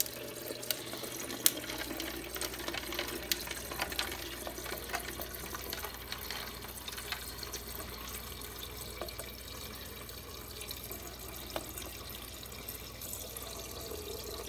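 Water running from a GE refrigerator's door dispenser into a cup, a steady stream with a low hum that comes in about two seconds in. A few clicks in the first seconds.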